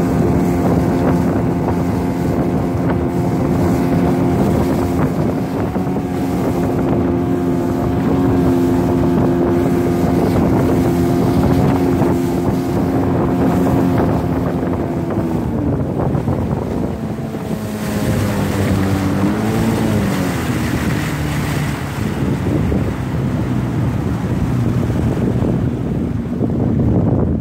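Boat's outboard motor running under way, with wind rushing on the microphone. About halfway through, the engine note drops as it is throttled back, wavers briefly, then settles at a lower, steady pitch.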